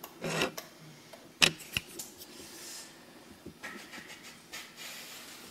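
A few sharp clicks and knocks with soft handling rustle as hands work the keypad of a digital pressure gauge and its fan-speed controller. The loudest click comes about a second and a half in.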